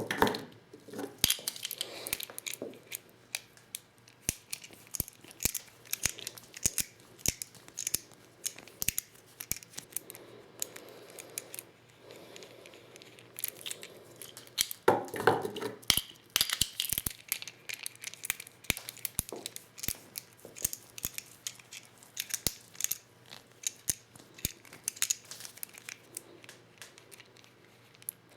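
Irregular small clicks and rattles of plastic shotgun hulls and hand reloading tools being handled while reloading 12-gauge shells, with two louder knocks, one at the start and one about halfway through.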